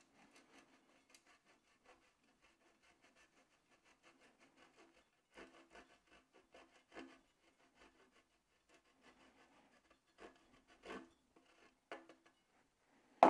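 A wedge of Parmesan being grated on a stainless steel box grater: faint, repeated rasping strokes, a few of them louder in the middle, and a sharp knock right at the end.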